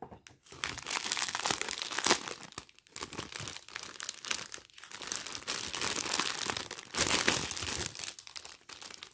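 Clear plastic packaging crinkling as it is handled and pulled open, in an irregular run of crackles that is loudest about two seconds in and again about seven seconds in.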